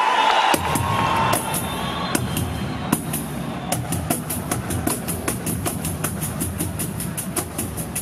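Several pandeiros played together: deep thumps from the drum heads and bright clashes from the metal jingles. About four seconds in they settle into a fast, steady pulse.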